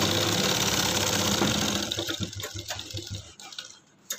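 Electric sewing machine running steadily as it stitches through layers of shirt fabric. It turns uneven about two seconds in and stops about three seconds in. A single click near the end.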